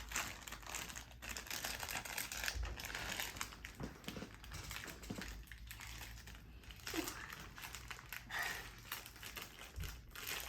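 Plastic packaging crinkling and rustling as it is handled, with frequent small clicks of plastic toy parts being fitted together.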